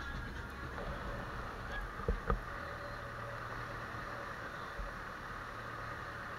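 Steady engine and road noise of a vehicle on the move, with two short knocks in quick succession about two seconds in.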